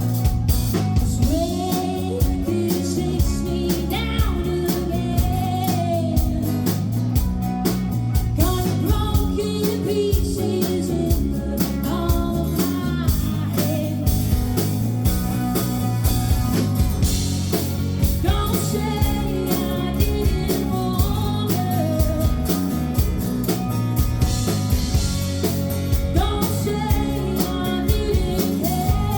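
Live band performance: a singer's voice carrying a melody over guitar, bass and drums.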